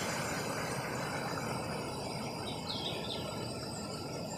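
Stream water running over rocks, a steady rushing hiss, with a couple of faint high chirps a little before three seconds in.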